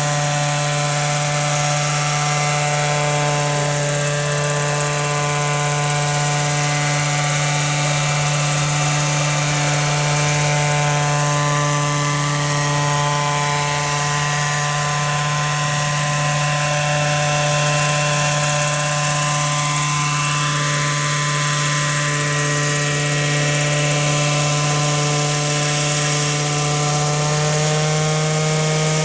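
Gasoline-engined Hirobo Huey scale RC helicopter flying, its engine and rotor giving a steady drone that rises slightly in pitch near the end. The main rotor blades are out of track.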